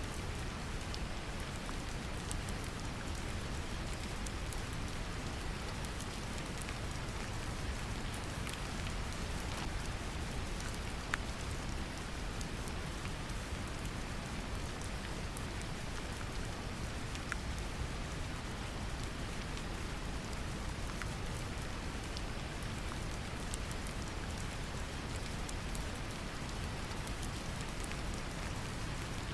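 Steady brown noise, a deep even hiss strongest in the bass, mixed with gentle rain whose scattered drop ticks sit on top; one slightly sharper drop a little before the middle.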